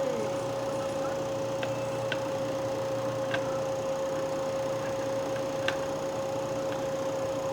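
Kitchen sounds during deep-frying: a steady hum at one constant pitch over an even hiss, with a few light clicks about two, three and six seconds in.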